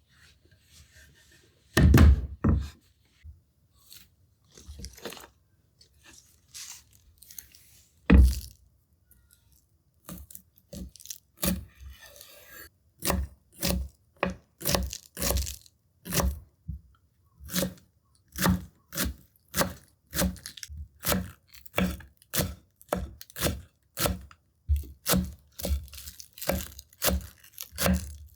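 A few scrapes and two heavy knocks, then from about ten seconds in a kitchen knife chopping on a cutting board in a steady rhythm, roughly two strokes a second.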